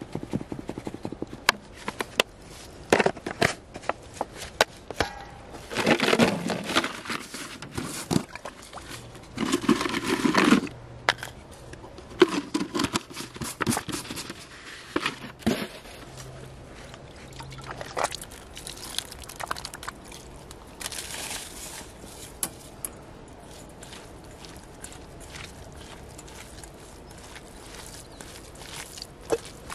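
Fish bait being made in a steel bowl: powder shaken out of a plastic jar onto cooked rice, heard as several short pouring bursts among many small clicks and taps. Near the end, hands start mixing the bait in the bowl.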